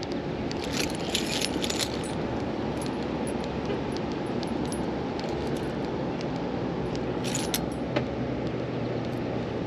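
Small metal clips and buckles on kayak gear clicking and jingling as they are handled, in short clusters about a second in and again near the end, over a steady low rushing noise.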